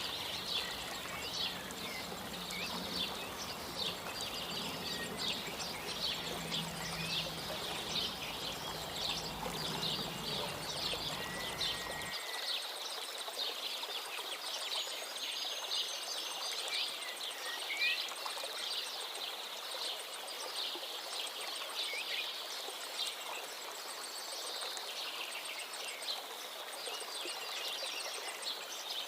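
A flock of small birds chirping continuously in a dense chorus of rapid, high chirps, with a few short whistled notes. A low background rumble underneath cuts off suddenly partway through.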